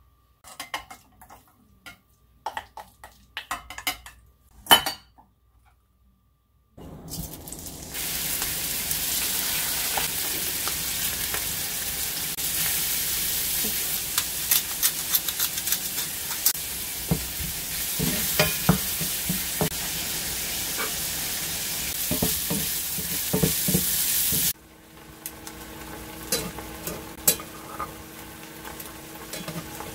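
Small shrimp sizzling and crackling in hot oil in a small cast-iron skillet, a loud steady hiss that starts about seven seconds in and cuts off abruptly near the end. Before it come light clicks and taps of a glass dish being handled. After it comes a quieter stretch with a steady low hum.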